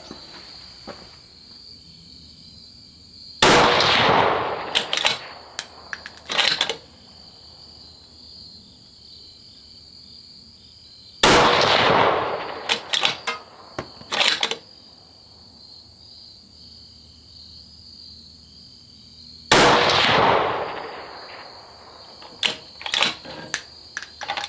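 Three rifle shots from a .223 bolt-action rifle on a Terminus Zeus action, about eight seconds apart. Each shot is followed a second or so later by a run of metallic clicks as the bolt is cycled. A steady high chirring of crickets runs underneath.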